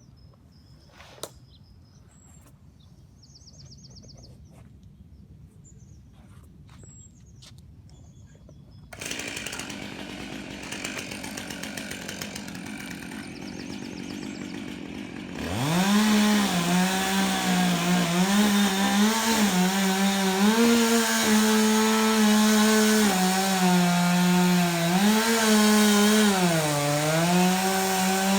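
Two-stroke chainsaw running at full throttle from about halfway through, cutting into redwood; its high engine note sags and recovers several times as the chain loads up in the cut. Before that there are only a few light clicks, then a steady noise starts about a third of the way in.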